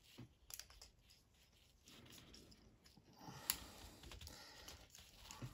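Faint, scattered clicks of a plastic Transformers Warpath action figure's joints and hinges as its legs are folded by hand, the sharpest click about three and a half seconds in.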